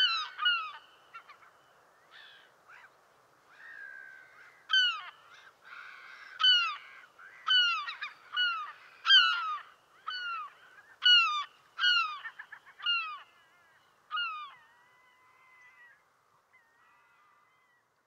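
Gulls calling: a string of short, loud calls that fall in pitch, about one a second, stopping a few seconds before the end.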